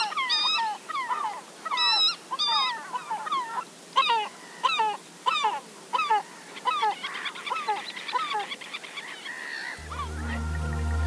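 Birds calling, many short honking calls in quick, overlapping series with brief pauses between runs, thinning out after about nine seconds. Music with low steady tones comes in near the end.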